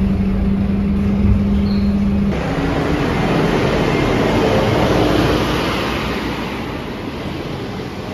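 Scania K230UB bus running: a steady hum cuts off about two seconds in, then a broad rush of engine and road noise swells and slowly fades away.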